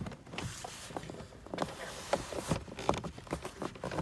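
Scattered light clicks and knocks, irregular and close together, of hands handling small hard objects.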